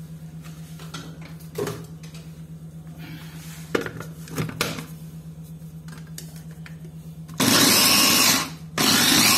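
Kenwood electric mini chopper run in two bursts near the end, each about a second and a half, blades chopping green chillies and coriander to a paste. Before that come a few light knocks as the motor unit is fitted onto the bowl.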